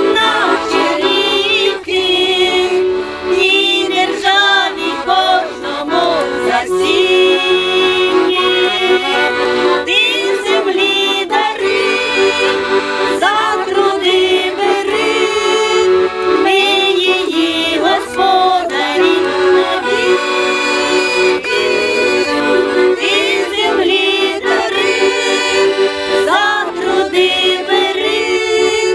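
Accordion playing a Ukrainian folk song melody over a held chord.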